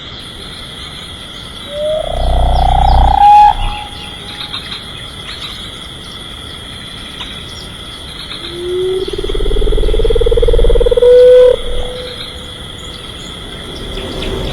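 Two long, rising creature calls, the second longer than the first, over a steady high insect buzz, as in a prehistoric-wildlife sound-effect ambience.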